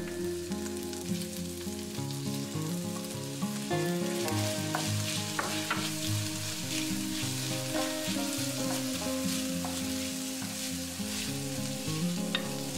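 Minced-beef filling sizzling in a frying pan, stirred with a wooden spoon, with a few sharp scrapes and knocks of the spoon against the pan in the middle.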